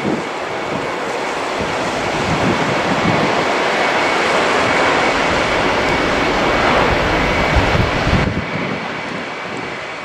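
Jet engines of a Ryanair Boeing 737-800 running on approach and through touchdown, a steady rushing roar with a faint high whine that swells to its loudest in the middle and eases near the end, mixed with gusty wind buffeting the microphone.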